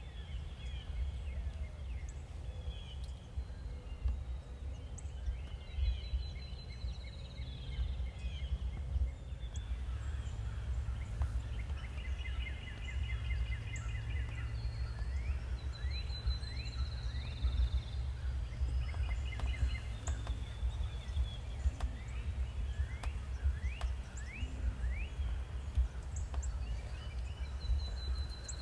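Wild turkey gobbler gobbling, a rapid stuttering call heard more than once. Songbirds trill high above it over a steady low outdoor rumble.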